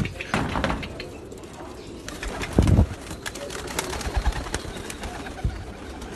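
Domestic pigeons cooing in their loft, with scattered sharp clicks and two low thumps, one about half a second in and one near three seconds.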